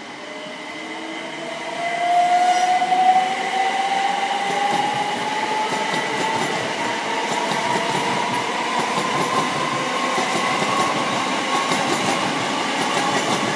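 A c2c Class 357 Electrostar electric multiple unit, two units coupled, passing close by: wheels running on the rails, with its traction motors whining in a tone that rises steadily in pitch as the train picks up speed. It gets louder about two seconds in as the train draws level.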